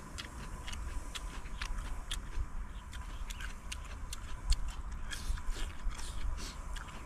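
Close-up chewing of a mouthful of stir-fried green pepper and tofu skin: irregular crisp, clicking crunches, with a sharper click about four and a half seconds in.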